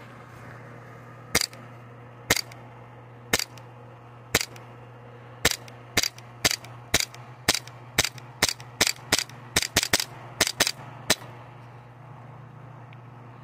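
HPA-powered airsoft pistol firing single shots, each a sharp pop of released air. About twenty shots in all, first about a second apart and then quickening to about two a second, stopping about eleven seconds in.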